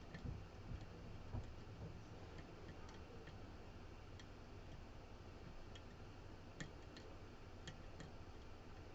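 Faint, scattered small clicks of a short-hook lock pick working the pins and sliders inside a CX5 lock, with a few sharper clicks near the end, over a low steady hum.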